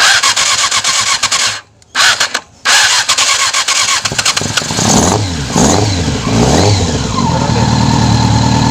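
Yamaha R6 inline-four being cranked on its electric starter in short bursts, catching about five seconds in. It revs up and down a few times, then settles into a steady idle: the bike restarts after stalling, as part of diagnosing its hard-start problem.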